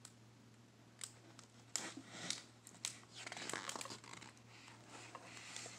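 Paper pages of a picture book being handled and turned: crinkling and rustling with a few sharp clicks, starting about a second in.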